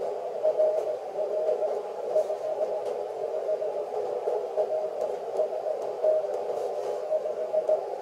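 Morse code (CW) received on a ham radio transceiver: a single mid-pitched tone keyed on and off in dots and dashes, weak and partly buried in band noise hissing through the radio's narrow CW filter.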